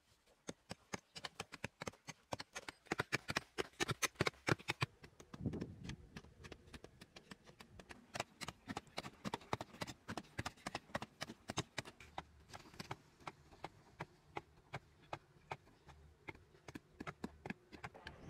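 A pointed digging stick chopping into hard, dry clay soil: quick, uneven knocks several times a second as clods break loose, with a duller thump about five and a half seconds in.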